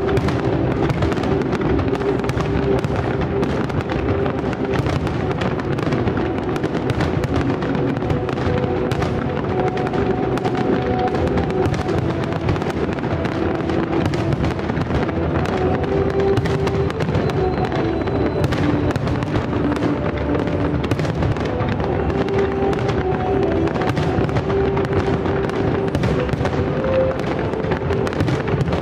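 Fireworks salute going off in a dense run of bangs and crackles, with music playing alongside.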